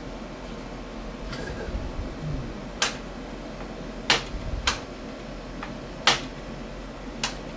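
About five sharp clicks and knocks of hard table-saw parts and accessories being handled and fitted, loudest about four and six seconds in, over a steady low hum.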